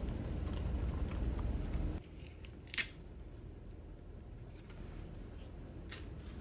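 A low, steady rumble that stops abruptly about two seconds in, followed by a quieter stretch with two sharp clicks, one near the middle and one near the end.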